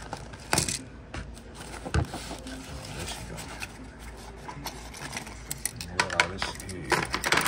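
Small metal carburetor parts being handled and dropped into a metal magnetic parts tray: scattered clinks, clicks and scrapes, coming thick and fast near the end.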